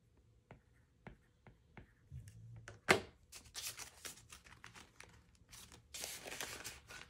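Paper bills and cash envelopes or plastic binder pockets being handled, rustling and crinkling, with a few light clicks and one sharp click just before three seconds in.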